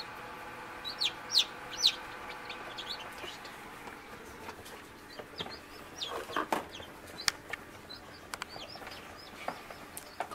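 Newly hatched chicks peeping: short, high chirps that drop in pitch, several close together in the first two seconds, then scattered. A few knocks about two thirds of the way through.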